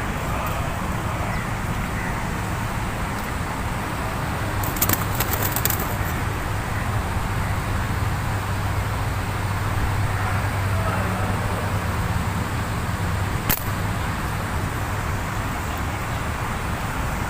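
Steady low background rumble with a hum, like distant traffic. It is broken by a quick run of sharp clicks about a third of the way in and a single sharp snap about three quarters in.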